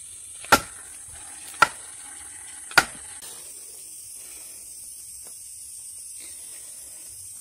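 Three sharp hammer blows about a second apart on a steel felling wedge, each with a short metallic ring, driving the wedge into the cut to push the tree over against its lean.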